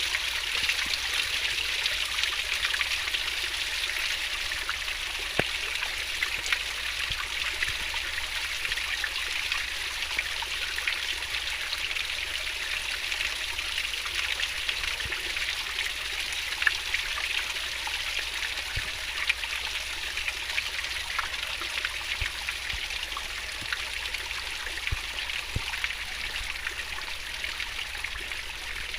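Fast-flowing stream water rushing and babbling steadily, with small splashes and droplet clicks scattered through it.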